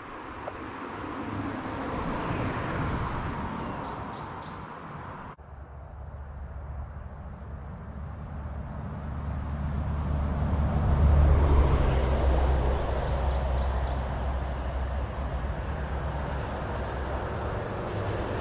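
Traffic crossing the concrete road bridge overhead: a vehicle swells and fades in the first few seconds over a steady high trill of insects. After an abrupt break about five seconds in, a deeper rumble builds to its loudest about eleven seconds in and slowly dies away.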